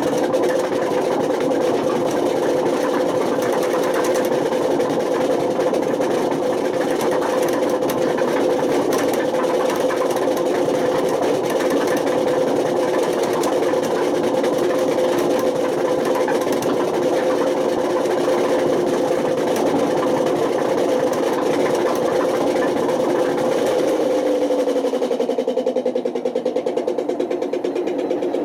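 Panasonic NA127VB6 washing machine running with failed drum bearings: a loud, steady mechanical drone with fast rattling clicks. The bearings are worn out badly enough to damage the drum spider. A few seconds before the end the drone's pitch falls as the drum slows.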